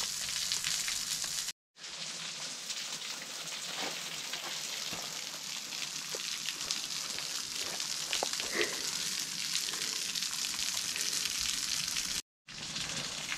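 A steady, even hiss, cut to silence twice for an instant, with a few faint ticks and a short chirp about two-thirds of the way through.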